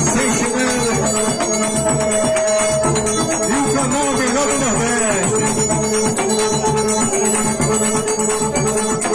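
Live trio of piano accordion, zabumba bass drum and triangle playing: accordion melody over a steady drum beat and a constantly ringing triangle.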